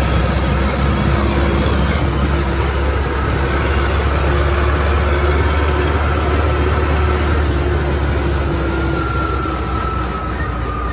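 Tractor's diesel engine running steadily at road speed while towing a trolley, heard from the driver's seat as a loud, even low rumble.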